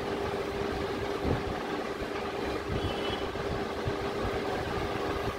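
Steady mechanical hum and rumble with one constant mid-pitched tone, and a few low knocks.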